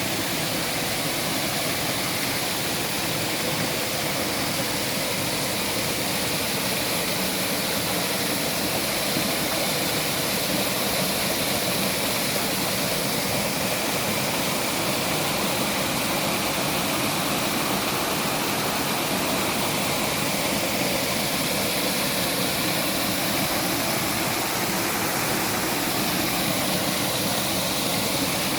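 Waterfall: falling water rushing steadily, an even, unbroken noise that does not change.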